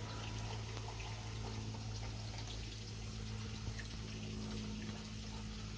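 G scale model train running along garden track: a steady electric motor hum with faint clicking of the wheels over the rails.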